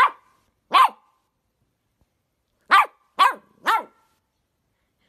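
Miniature dachshund puppy barking: five short, high-pitched barks, two near the start and three more in quick succession about halfway through.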